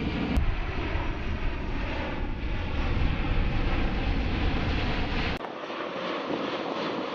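Jet aircraft engine roar from a C-17 Globemaster III's four turbofan engines. There are abrupt edit cuts: a click just after the start, and a sudden loss of the low rumble about five seconds in, after which a thinner jet noise continues.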